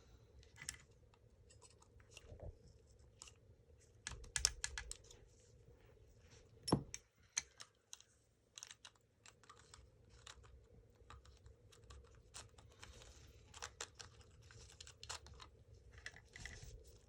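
Small clicks, ticks and light rattles of airsoft gearbox parts being handled and fitted, with a louder knock about seven seconds in.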